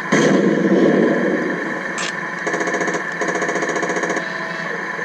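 Sound effects from the onboard sound unit of a Tamiya 1/16 RC M551 Sheridan, played over its simulated engine idle: a loud blast right at the start that fades over about a second and a half, then a rapid rattle lasting under two seconds with a brief break in the middle.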